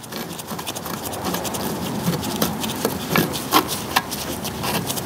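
Handling noise from gloved hands working bolts into the vacuum pump housing: rubbing and rustling with many light, irregular clicks and taps of metal parts.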